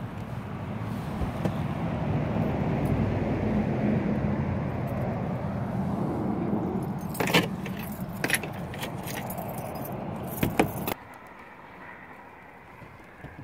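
Steady outdoor rushing noise, swelling and then easing, with a few sharp clicks and jingles about seven to eleven seconds in. The noise drops off abruptly near the end.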